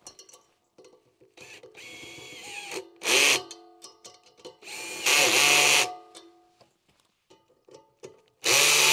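Cordless drill-driver running nuts onto bolts in three short bursts: one about three seconds in, a longer one around five seconds, and one near the end, with quieter motor whirring between them.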